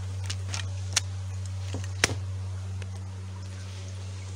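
A steady low hum with a few short sharp clicks or taps over it, the loudest about two seconds in.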